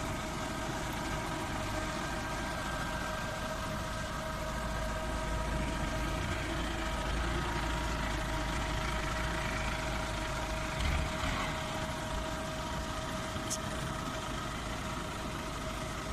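Lonking forklift engine running steadily as the truck carries a heavily loaded pallet, with a constant whine over the engine noise and a brief louder knock about eleven seconds in.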